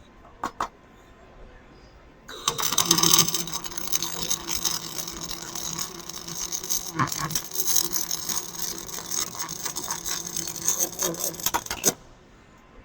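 MIG (CO2-shielded) welding arc on carbon steel, fed with 1.2 mm wire: a loud, dense, steady crackle begins about two seconds in and cuts off abruptly near the end. Two short clicks come just before it.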